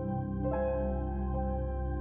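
Background music: slow ambient, new-age style music with held notes over a steady low drone, the chord changing about once a second.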